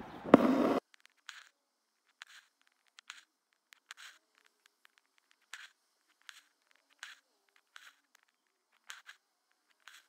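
A fine beading needle and embroidery thread pulled through fabric stretched in a hoop, giving faint, short scratchy strokes roughly once a second as each stitch of the iris fill is made. A louder knock and rustle comes in the first second.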